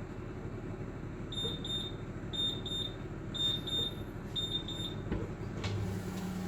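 Electric oven with its fan running, a steady hum, while its electronic beeper sounds four double beeps, about one pair a second. Near the end there are a couple of clicks, and the hum changes to a deeper, steadier tone.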